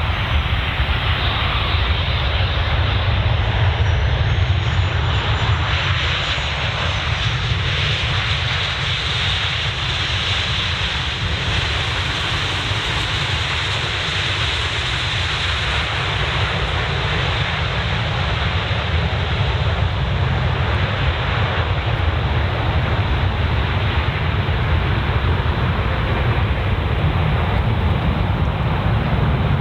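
Jet engine noise from a Boeing 737-800's CFM56-7B turbofans as it lands: a steady, loud jet sound over a heavy low rumble, with a faint high whine that glides in the first few seconds.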